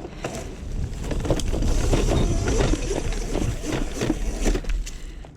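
Razor MX500 electric dirt bike's chain-driven motor working under load on a steep hill climb, its whine rising and falling, with the chain and tyre rattling. Wind buffets the microphone, adding a low rumble.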